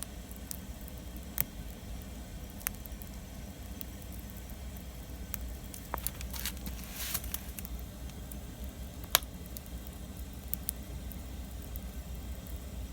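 Wood fire crackling, with scattered sharp pops, the loudest about nine seconds in, and a brief hiss a little past halfway.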